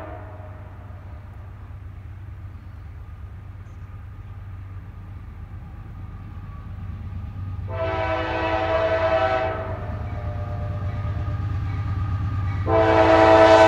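Approaching CSX freight locomotive sounding its multi-note air horn for a grade crossing: two long blasts, the first about eight seconds in and the second near the end. Under the blasts is a low diesel rumble that grows louder as the train closes in.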